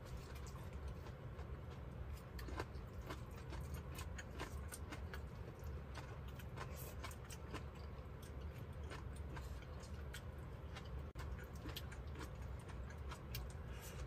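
Chopsticks clicking and scraping against disposable bowls and quiet chewing while eating rice: scattered small ticks, irregular and frequent, over a steady low hum.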